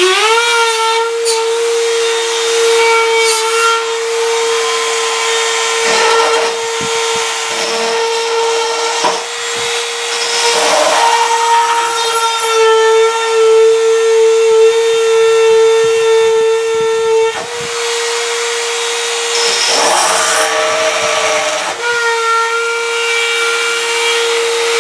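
Dremel rotary tool with a tile bit spinning up and running at a steady high-pitched whine while it drills into a piece of ceramic tile, with rougher grinding several times as the bit bears into the tile. The bit makes slow progress, only just getting a hole started.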